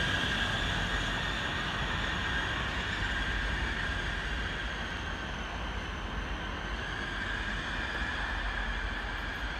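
A train running past on the rails and slowly fading, its rumble carrying a steady high-pitched whine.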